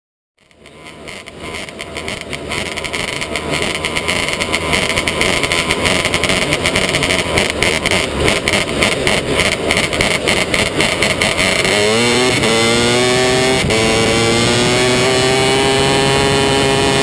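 Onboard sound of a 270 micro sprint's engine: it fades in rough and noisy, then about 12 seconds in it revs up with a rising pitch and holds a steady, higher note.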